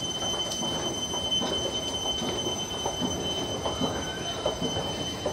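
Metro station escalator running: a steady high whine over an uneven low rumble, with scattered faint clicks.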